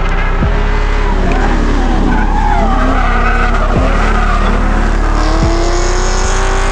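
Two drift cars sliding in tandem, their engines revving up and down at high revs while the tyres squeal and skid.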